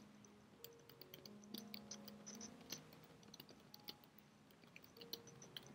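Faint, irregular keystrokes of typing on a computer keyboard.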